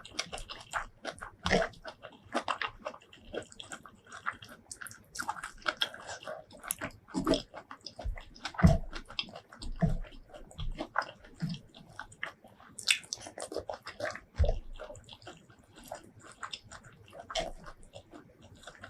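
Close-miked eating sounds: wet chewing and biting with irregular crackly clicks, a few louder thumps among them, as spicy shrimp curry with rice is eaten.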